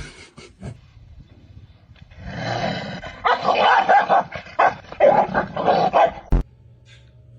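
A dog growling and grumbling in a run of rough, noisy pulses lasting about four seconds, then one sharp knock near the end.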